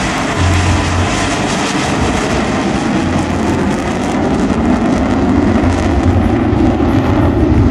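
Jet engine noise of a USAF F-16 fighter flying overhead in a climb: a loud, steady rushing sound that grows a little louder in the second half.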